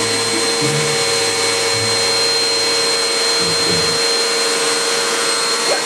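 Vacuum cleaner running steadily through its hose, a constant rushing hum with a high whine on top, as the hose draws in a length of long hair.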